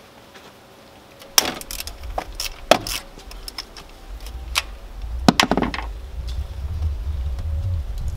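Irregular sharp metallic clinks and rattles of a 3/8 ratchet and socket working a manual transmission's fill bolt loose, about half a dozen knocks spread over a few seconds, with a low rumble building up from about halfway.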